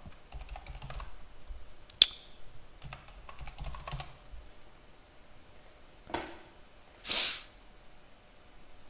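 Typing on a computer keyboard: a quick run of light keystrokes over the first four seconds or so, with one sharper click about two seconds in. A short hissing noise follows about seven seconds in.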